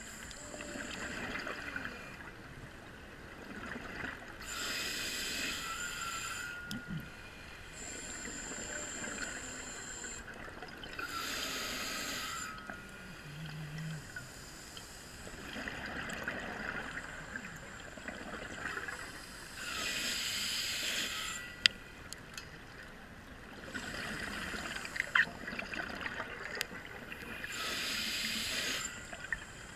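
Scuba diver breathing underwater through a regulator: a hiss and a rush of exhaled bubbles come in turn, the cycle repeating about every seven to eight seconds. Two sharp clicks stand out in the second half.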